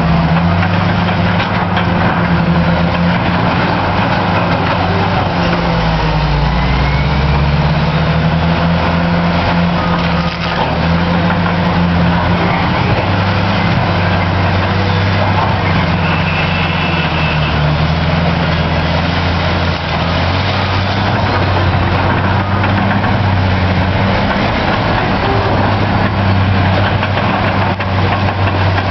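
Caterpillar D9T bulldozer's C18 diesel engine running steadily under throttle. Its pitch dips briefly about six seconds in, then recovers.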